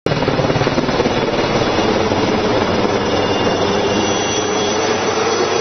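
HAL Cheetah (Lama-type) single-turbine helicopter flying low overhead: steady rotor noise with a high turbine whine on top.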